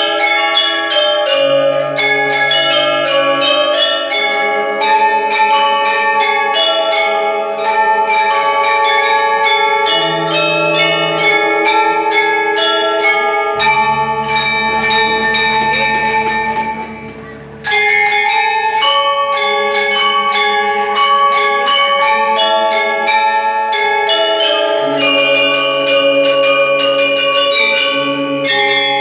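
Music of fast, bell-like struck notes in chords over held low bass notes, like mallet percussion or a bell-toned keyboard, with a brief drop in level about two-thirds of the way through.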